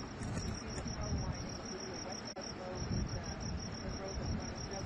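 Steady low roar of a burning gas pipeline fire, with crickets chirping in a steady rapid pulse over it.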